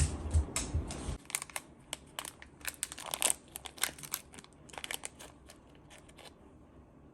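Crinkling and crackling of packaging being handled: a string of short sharp crackles and clicks. A low hum underneath cuts off about a second in.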